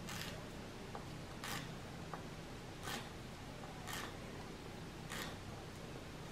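Paring knife slicing lengthwise through spring onion on a wooden cutting board: five short cuts a little over a second apart, over a steady low hum.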